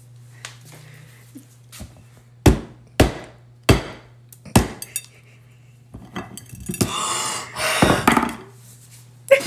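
Small metal mallet striking a chocolate breakable heart on a plate: a series of sharp knocks, each a bit more than half a second apart, the loudest in the middle of the run. Near the end, a stretch of cracking and scraping as the broken chocolate shell is pulled apart, over a steady low hum.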